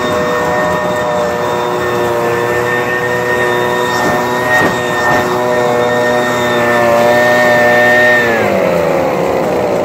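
John Deere combine running with a steady, high machine whine, which slides down in pitch a little after eight seconds as the machine slows. A couple of faint knocks come through about halfway.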